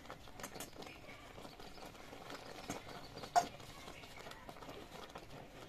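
Steel ladle mashing soft-boiled masoor dal in a steel wok, with irregular small knocks of the ladle against the pan and one louder clank about three and a half seconds in.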